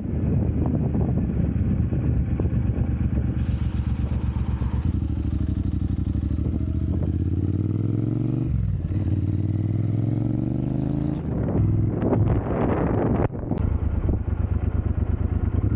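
Triumph Bonneville Speedmaster's 1200 cc parallel-twin idling steadily through an aftermarket Dr. Jekill & Mr. Hyde electronically valved exhaust, with a brief dip in engine note about halfway through and some clatter in the last few seconds.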